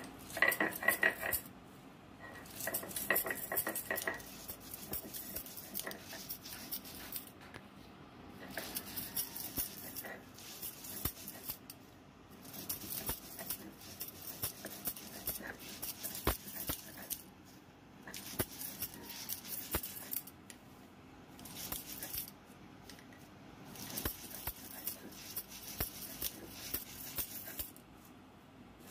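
Stone roller grinding fried prawn heads and shells on a flat stone slab (shil-nora): gritty scraping and crunching in repeated bursts of quick back-and-forth strokes, with short pauses between them. Bangles on the grinding wrists clink along with the strokes.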